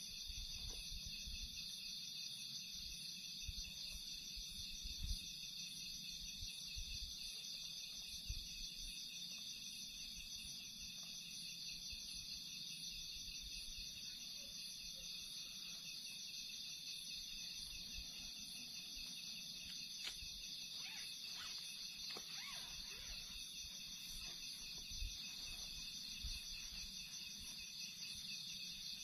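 Steady night chorus of crickets and other insects, a continuous high pulsing trill. Occasional soft thumps and rustles come from the tent being handled, most of them about two-thirds of the way through.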